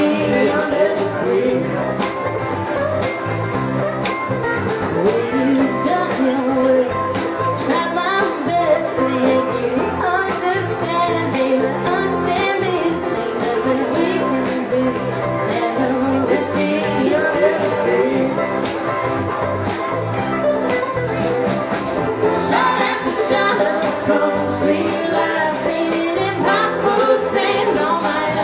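Live country band playing a song: acoustic guitar, mandolin, electric bass and drums, with a woman singing lead.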